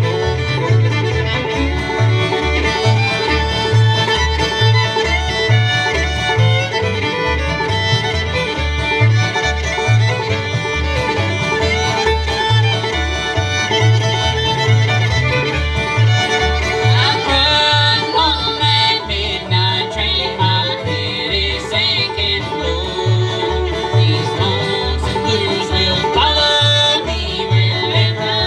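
Bluegrass band playing: fiddle, five-string banjo, acoustic guitars and upright bass, with the bass keeping a steady beat under a fiddle and banjo melody.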